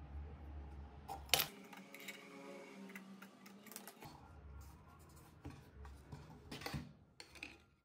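A small metal hinge clinks sharply on the mat about a second and a half in, followed by lighter knocks and rubbing as a small plywood box is handled.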